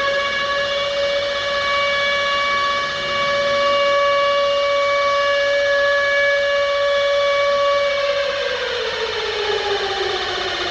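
Civil defense siren holding one steady pitch, then winding down, its pitch falling over the last two or three seconds.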